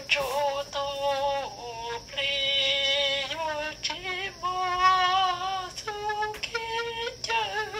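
A woman singing a slow, unaccompanied melody, holding each note for about a second with slides in pitch between notes.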